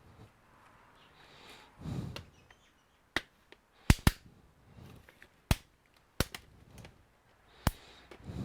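Sharp plastic clicks and snaps, about six spread over several seconds, with quieter handling and rustling between them, as a laptop's plastic case is worked apart.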